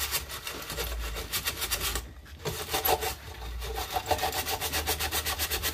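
Bronze wool pad scrubbing caked-on buildup off the metal top of a Gas One dual-burner camp stove in quick back-and-forth strokes, with a short pause about two seconds in.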